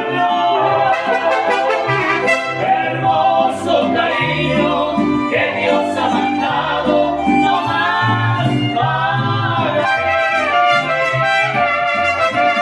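Mariachi band playing, trumpets carrying the melody over a bass line that changes note about once a second.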